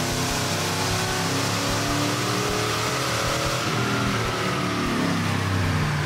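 1994 Ford Lightning's 5.8-litre V8 in a full-throttle pull on a chassis dyno, the rear tyres driving the rollers. Its pitch climbs steadily for about four seconds, then falls away as the throttle is released.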